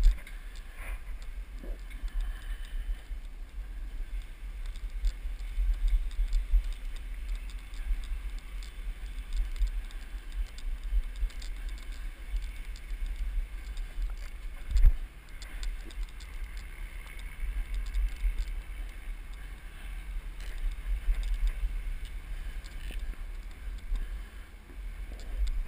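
Low, fluctuating rumble of wind buffeting the microphone, with scattered light clicks and one sharper knock about fifteen seconds in.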